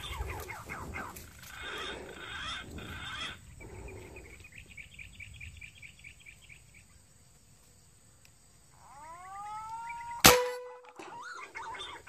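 A PCP air rifle fires once with a sharp crack about ten seconds in, the loudest sound here. Before it come rustling, a run of quick high repeated bird notes, and whistled bird calls that glide up and down.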